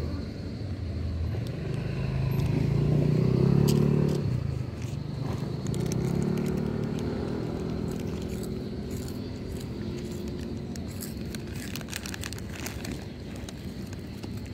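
Cats crunching dry kibble, with sharp chewing clicks that come thickest near the end. Under them, a low droning hum swells and fades twice in the first half.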